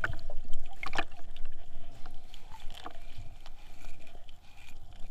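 Water splashing and sloshing over a phone's microphone inside a leaking waterproof pouch, with scattered sharp knocks and crackles over a muffled rumble.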